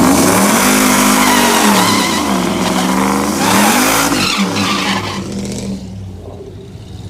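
Cammed Hemi V8 revving up and down hard with tyres squealing, as in a burnout; the sound fades away after about five seconds.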